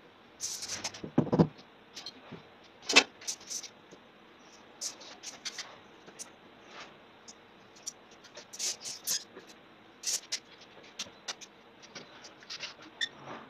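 Scattered clicks, scrapes and knocks from a person moving about and handling work materials, with one louder low thump about a second in.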